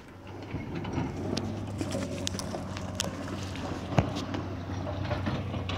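A steady low engine hum, with scattered clicks and crunches of steps on creek-bed stones and one sharp click about four seconds in.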